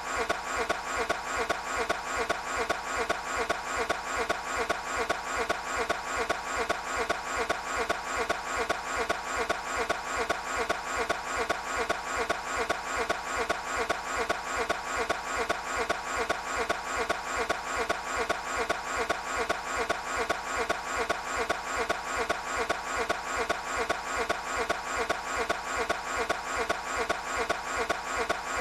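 Toyota 86 engine being cranked over by its starter without catching: an even, unchanging rhythm of about three pulses a second that repeats over and over.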